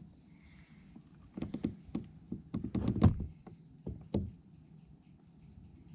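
Steady high chirring of a night insect chorus, with a run of irregular knocks and thumps in the middle from handling a caught traíra (wolf fish) as it moves its tail in the angler's hands.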